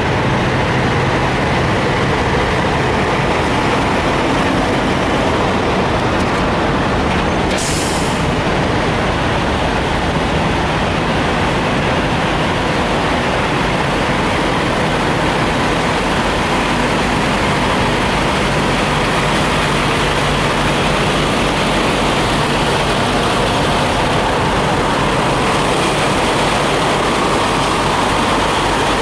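Parked diesel semi trucks idling: a steady low engine hum under broad noise, with a brief high hiss about eight seconds in.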